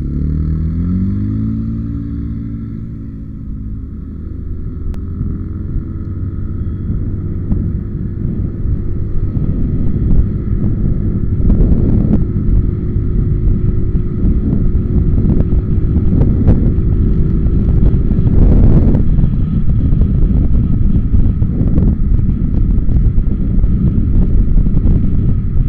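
Motoran 200 ATV's engine pulling away, its pitch climbing quickly over the first two seconds, then rising slowly and steadily as speed builds. From about eighteen seconds in, a rush of wind on the microphone covers the engine.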